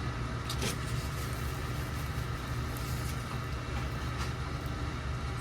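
A steady low rumble of background noise, with a few faint clicks about half a second in and again near the end.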